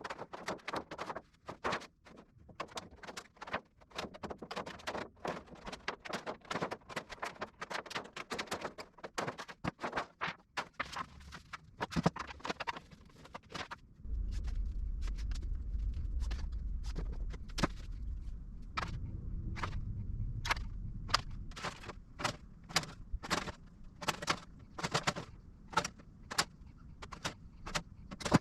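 Hand work on sheet aluminum: a rapid, irregular run of sharp metallic clicks and knocks. About halfway through, a steady low rumble starts under them.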